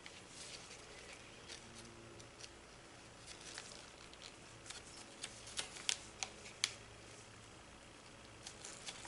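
Faint handling noises of a model rocket parachute and its shroud line being tied through a tape disc: light rustling with scattered small clicks, a few sharper ticks a little past the middle.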